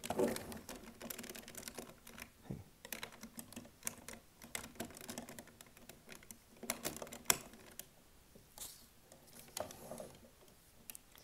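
Parts of a Legacy Collection Megazord and Dragonzord toy clicking and rattling as they are handled and snapped together. There is a knock just at the start and a sharp click about seven seconds in.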